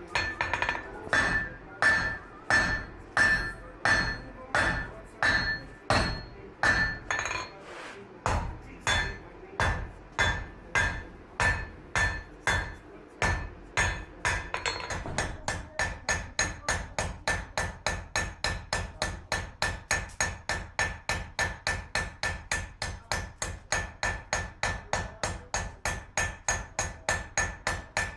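Blacksmith's hammer striking metal on an anvil in a steady rhythm, each blow ringing. About one and a half to two blows a second, then quicker and lighter blows, about three a second, from about halfway.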